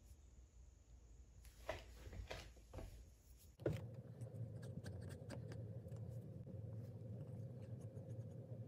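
A few short, faint scratchy strokes of a freshly sharpened straight razor blade, ground from an old saw blade, shaving hair on a forearm as a sharpness test. About three and a half seconds in comes a knock, then a steady low hum with light clicks of the steel blade and oak handle blank being handled on a bench.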